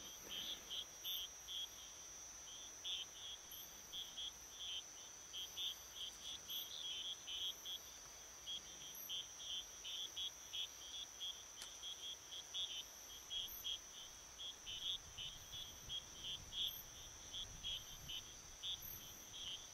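Insect chorus: a steady high-pitched trill with many short chirps repeating irregularly on top of it.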